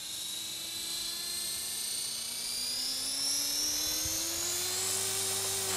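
A 450-size electric RC helicopter spooling up on the ground: a motor-and-rotor whine that rises steadily in pitch and levels off near the end as the rotor reaches flying speed before takeoff.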